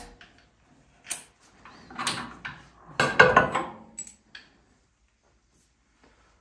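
Metal clanks and knocks from a hydraulic tilt cylinder and its pins being worked loose and lifted off a Kubota tractor's three-point hitch. The knocks come in clusters and are loudest about three seconds in, then stop about four and a half seconds in.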